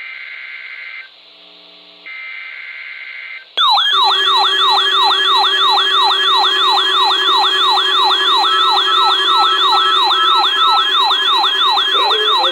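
The end of a NOAA Weather Radio SAME digital header: two roughly one-second bursts of buzzing data tones. About three and a half seconds in, a weather alert receiver's electronic siren alarm sets off at much higher volume, a repeating warble of about three pitch sweeps a second, triggered by the weekly test signal.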